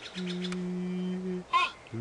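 Cartoon soundtrack: a fast ticking that stops about half a second in, then a steady low hum for about a second, ended by a short grunt-like voice sound.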